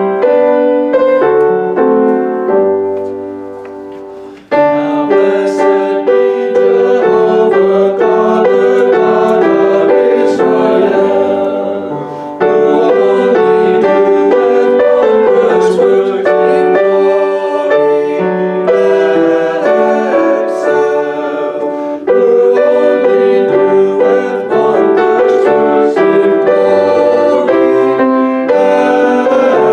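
A piano plays a short introductory phrase that dies away. About four and a half seconds in, a congregation comes in singing a hymn with piano accompaniment.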